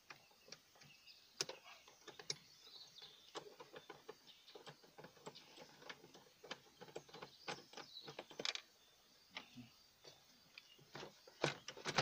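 Ratchet wrench clicking in short, irregular runs as the two 8 mm bolts of the rear door's inner handle bracket are undone, with a sharper knock about a second and a half in and a few more near the end.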